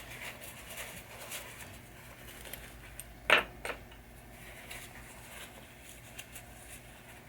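Small metal pinball saucer-kicker parts being handled and wiped clean: faint scrapes and ticks, with one sharp clink a little over three seconds in and a lighter one just after.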